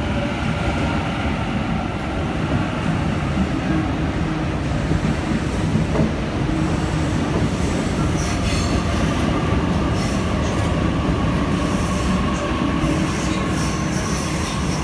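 Sydney electric suburban trains running over the curved approach tracks: a steady rumble of wheels on rail with clicks over the joints and high-pitched wheel squeal on the curves.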